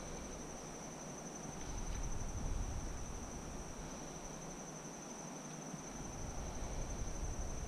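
Steady, high-pitched insect chorus holding one unbroken tone, with a low rumble that swells and fades twice underneath.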